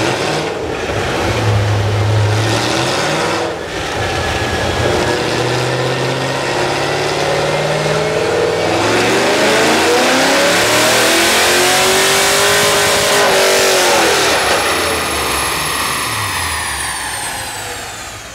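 Corvette LS1 V8 in a G2X roadster running on a chassis dyno: the exhaust note climbs in pitch in several steps, with brief breaks about three and a half and eight and a half seconds in, peaks, then falls as the engine winds down near the end, with a high whine sliding down and the sound fading out.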